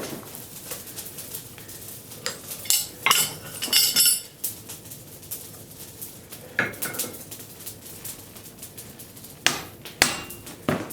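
Blacksmith's hammer and tools striking hot iron on the anvil while a railroad spike is forged, in irregular groups of metallic clinks. It ends with four sharp, ringing strikes about half a second apart.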